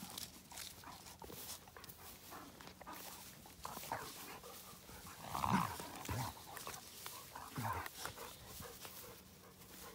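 Two puppies play-fighting in grass: scattered short dog noises and scuffling, the loudest about halfway through.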